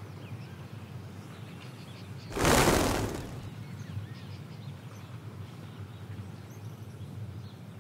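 A sudden whoosh-like rush of noise about two seconds in, fading away within about a second. It sits over a steady low background hiss with faint high chirps.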